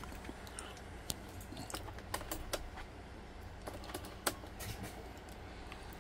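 Irregular light clicks and taps, about a dozen, some in quick clusters, over a low steady hum inside a truck cab.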